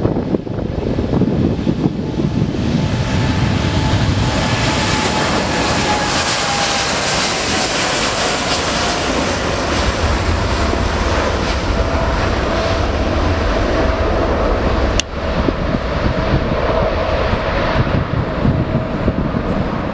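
Boeing 787-9 jet engines at takeoff power: a loud, steady roar, with engine tones that slide slowly down in pitch as the airliner goes past. A single sharp click with a brief drop in level comes about three-quarters of the way through.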